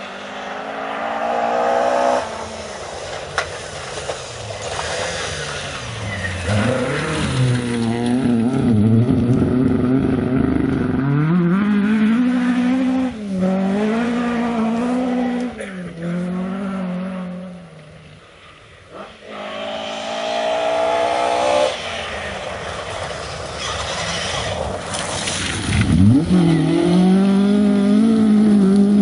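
Historic rally car engines revving hard on a gravel stage, the pitch climbing and dropping through gear changes and lifts as one car goes past and away. After a brief lull, a second car, a Mk2 Ford Escort, arrives flat out and slides through the bend near the end.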